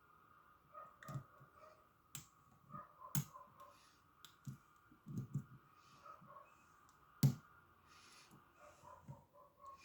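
Lock pick working inside a padlock's keyway: irregular faint clicks and scrapes as a deep hook lifts pin tumblers against a tension wrench, with three sharper clicks.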